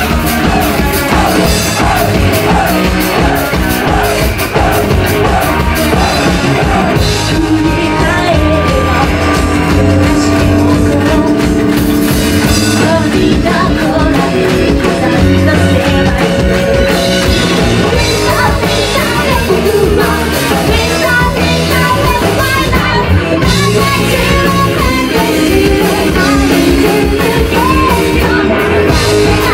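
Live rock band playing: a woman sings the lead vocal over electric bass and a drum kit.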